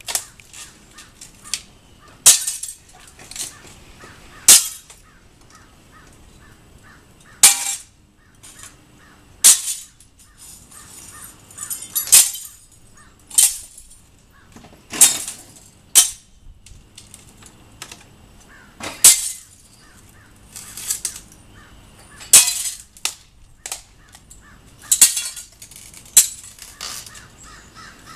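Repeated sharp knocks and cracks, one every one to three seconds, as an old window's glass and frame are broken out.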